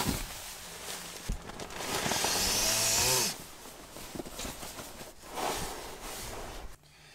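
A synthetic sleeping bag is pulled out and spread over an inflatable sleeping pad: rustling and swishing of the nylon fabric. It is loudest about two to three seconds in, with a short wavering squeak at that peak.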